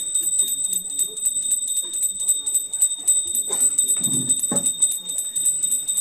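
Small brass puja hand bell rung continuously: a steady high ringing with rapid, even strikes. A brief low voice sounds about four seconds in.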